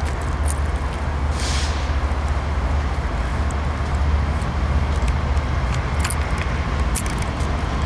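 BNSF diesel locomotives leading a freight train approach, their engines running with a steady low rumble. A short hiss comes about a second and a half in, with scattered sharp clicks.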